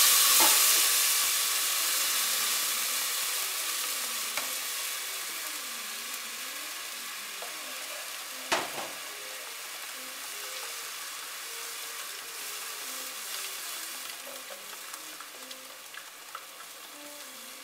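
Blended tomato, garlic and onion sizzling as it is strained into hot oil in a pot, loudest at first and slowly dying down. A single knock about eight and a half seconds in.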